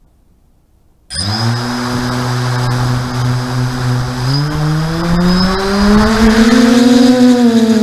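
FPV quadcopter's electric motors starting abruptly about a second in and running as a loud steady hum. About four seconds in the pitch begins to climb gradually as the throttle is raised for takeoff.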